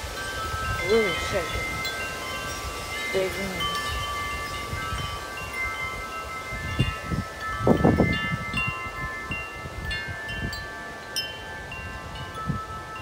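Tubular metal wind chime ringing in a strong wind, many tones struck and overlapping as the tubes swing. Wind rumbles on the microphone beneath it, loudest in a gust about eight seconds in.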